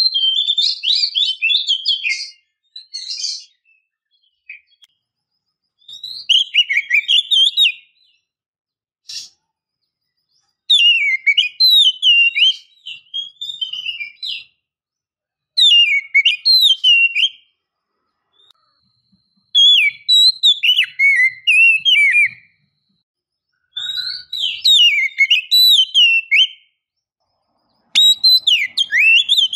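Oriental magpie-robin (kacer) singing in repeated bouts of quick whistled phrases, each one to two seconds long, separated by short pauses.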